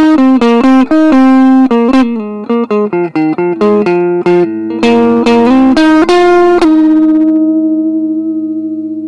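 Solomusic STK-1 Strat-style kit electric guitar, plugged in and played: a quick run of single picked notes, then, about two-thirds of the way in, one note held and left ringing, slowly fading.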